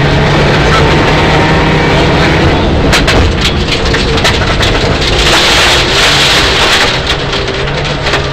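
Mitsubishi Lancer Evolution IX rally car's turbocharged four-cylinder engine running hard on a gravel stage, heard from inside the cabin. A run of sharp cracks and knocks starts about three seconds in, and a rising hiss of gravel under the car comes around the middle.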